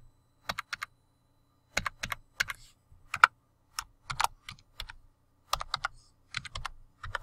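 Typing on a computer keyboard: quick runs of keystroke clicks separated by short pauses.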